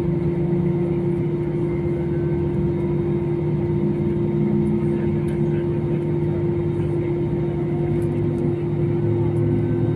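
Steady engine drone of a passenger airliner heard inside the cabin, with a constant hum over an even rushing noise.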